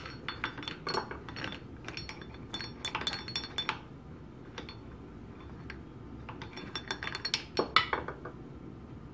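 Steel parts of a Linotype Model 5 linecaster's knife block clicking and clinking as its selector wheel is rolled against the bench: a run of small metallic clicks, a pause of a few seconds, then another cluster of clicks near the end.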